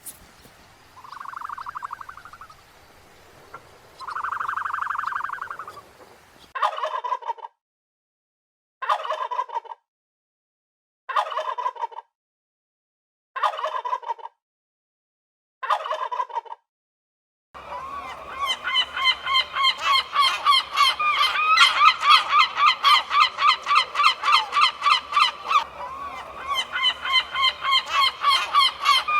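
Birds calling in edited clips. First come two drawn-out calls. Then five short, rapid, rattling calls follow, each cut off by a silent edit. From about two-thirds of the way in, a continuous run of quick, repeated calls begins.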